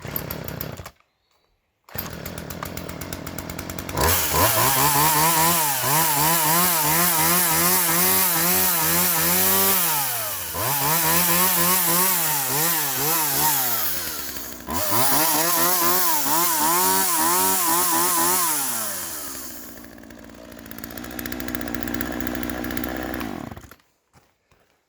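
Poulan two-stroke chainsaw running: it idles briefly, then is revved to full throttle in three long runs with short dips between, drops back to idle and is shut off near the end. It is a yard-sale saw that would not run, now running on fresh fuel.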